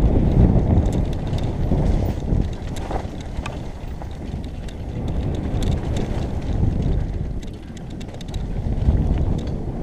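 Downhill mountain bike descending a dirt trail: wind buffeting the helmet-camera microphone and tyres rolling over dirt, with scattered clicks and rattles from the bike. The rumble eases a little twice, then builds again.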